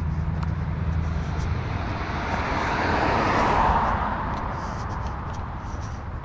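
A car drives past on the road, its tyre and engine noise swelling to a peak about three and a half seconds in and then fading away. A low engine hum is heard for the first second or so.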